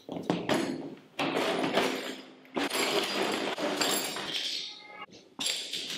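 Hand tools (pliers, a hammer, screwdrivers) clinking and clattering in several bursts as they are taken from a plastic tool case and laid out on a wooden floor.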